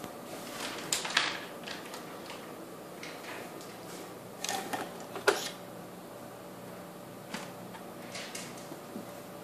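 Scattered light knocks and clicks of small objects being handled, the loudest about five seconds in, over a faint steady hum.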